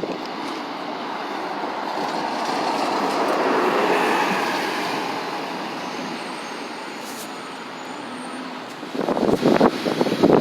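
A bus drives past. The sound swells to a peak about four seconds in, then fades away. Near the end, wind buffets the microphone in rough gusts.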